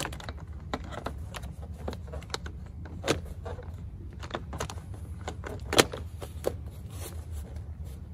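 Plastic door sill trim of a 2011 GMC Sierra 1500 being pressed back into place by hand: a run of irregular clicks and knocks, the sharpest about three seconds in and just before six seconds in, over a steady low hum.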